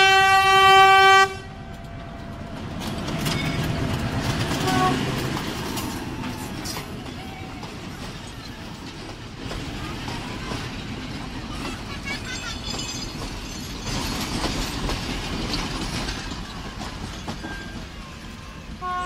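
Train horn sounding one long, loud blast that cuts off about a second in. The train then runs past, a steady rumble of the carriages moving over the track, and the horn sounds briefly again at the very end.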